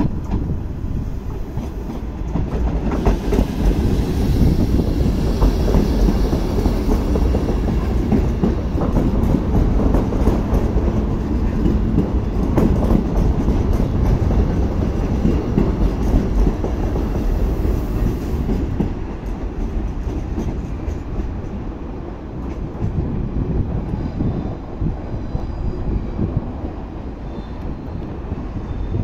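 A TER 2N PG double-deck electric multiple unit pulls out and runs past close by. Its wheels rumble and click over the rail joints and points. The noise eases after about twenty seconds as the train moves away.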